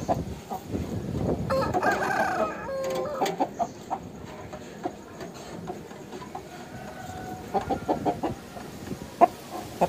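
A rooster crows once, about a second and a half in, a wavering call about a second long. Several short, sharp taps follow near the end.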